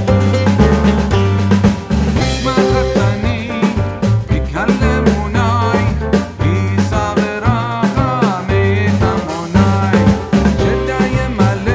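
Music with a drum kit and bass keeping a steady beat, and a wavering melodic line over it.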